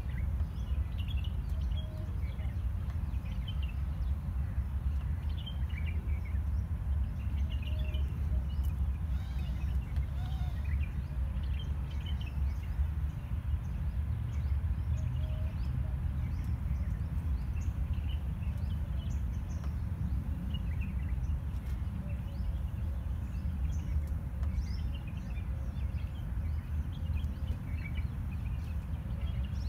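A steady low rumble with many short bird chirps scattered through it.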